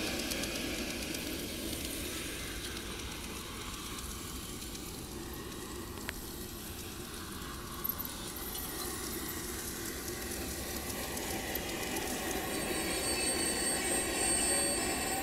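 Garden-scale model train running on outdoor track: the running noise of wheels on the rails fades as the train goes away, then grows again as the Piko BR 254 electric locomotive comes back around, a thin high motor whine coming in near the end.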